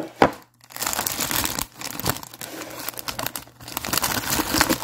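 Two quick knocks, then steady crinkling of the thin plastic netting sleeves on new makeup brushes as they are handled and unwrapped.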